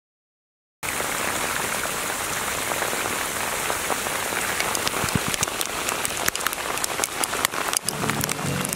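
Small hail pellets falling and striking the ground and surfaces around them: a dense hiss full of sharp ticks, starting just under a second in. The ticks grow more frequent partway through.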